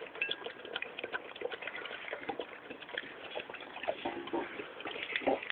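English Mastiff chewing a chicken carcass, the bones crunching and cracking in a quick, irregular run of sharp clicks.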